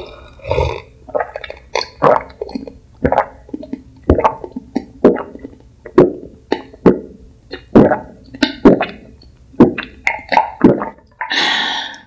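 Close-miked gulping as a person drinks steadily from a glass mug: loud swallows, roughly one or two a second, followed by a breathy rush of air shortly before the end.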